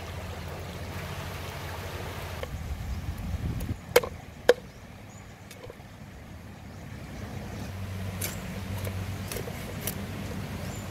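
River water sloshing and running as a plucked goose carcass is rinsed by hand in a shallow stream. About four seconds in come two sharp knocks half a second apart, and near the end a few lighter knocks as a cleaver works at the carcass.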